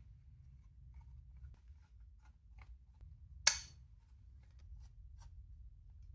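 Small clicks and handling noises as a 2.5-inch SSD is worked off its drive mounting bracket, with one sharp snap about three and a half seconds in.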